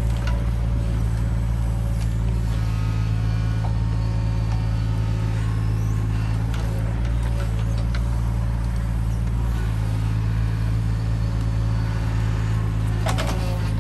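Mini digger's diesel engine running steadily under working load, with brief higher hydraulic whines as the boom and bucket move, and a sharp metallic knock near the end.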